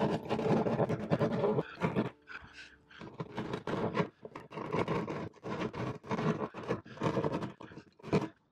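Small hand saw rasping back and forth through the fibreglass cockpit floor of a sailboat in quick repeated strokes, with a short pause about two seconds in. The cut is being widened past water-rotted core to reach solid core.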